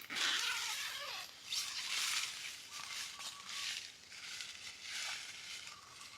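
Outdoor natural ambience: several bursts of rustling or crunching, the loudest right at the start, with a faint steady high tone that comes and goes.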